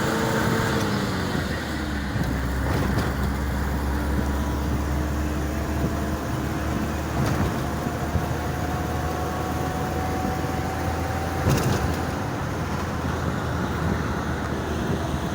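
Engine and road rumble of a moving motor vehicle, its engine note dropping about a second in and then climbing slowly.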